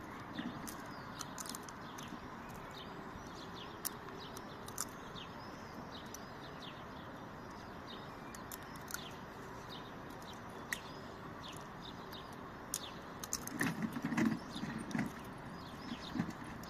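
Small birds chirping in short, quick calls over a steady hum of distant city traffic, with a few louder low thumps near the end.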